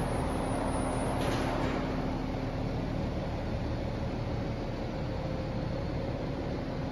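BMW 330d's 3.0-litre straight-six turbodiesel idling steadily, heard through a 340i exhaust fitted in place of the standard one.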